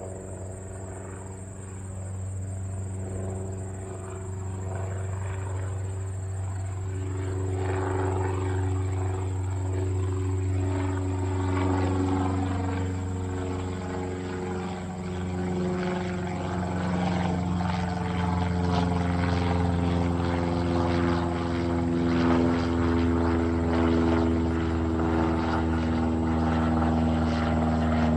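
Single-engine Cessna light plane climbing out after takeoff, its engine and propeller drone growing steadily louder as it comes overhead, the pitch sliding slowly.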